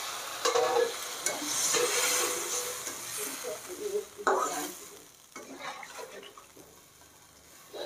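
Metal spatula stirring and scraping in a metal kadai of rohu fish curry, with a few sharp knocks against the pan, over the hissing sizzle of water just added to the hot oil and masala. The sizzle dies down about two thirds of the way through.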